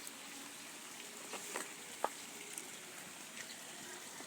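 Quiet outdoor background hiss with a few faint clicks and taps, the sharpest about two seconds in.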